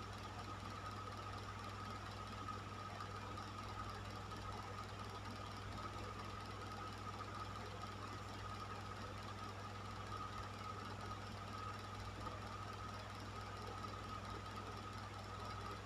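Electric fan running steadily: a constant low hum from the motor with a faint steady whine, over the even rush of moving air.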